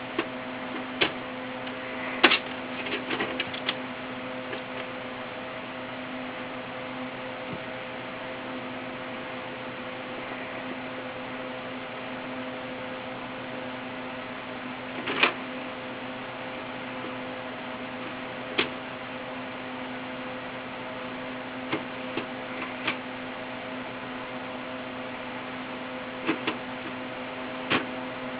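A steady mechanical hum with a few sharp clicks and taps scattered through it, a cluster of them about two to four seconds in, another near fifteen seconds and a few near the end.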